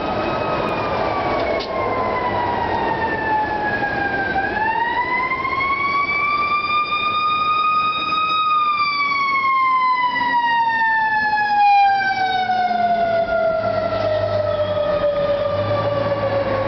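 Federal Q2B mechanical fire-engine siren, winding down. It is spun back up about four seconds in, rising in pitch for another four seconds, then left to coast down in a long, slow falling wail. A low engine rumble joins near the end.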